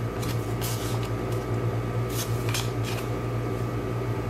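Several short rustles and slides of paper cards being handled, over a steady low hum.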